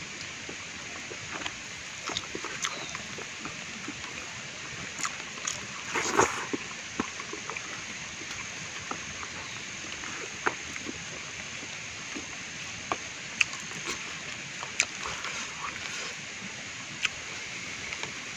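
Banana leaf and leafy greens crackling and rustling as they are handled and folded, in scattered short crackles with a louder cluster about six seconds in, over a steady outdoor hiss.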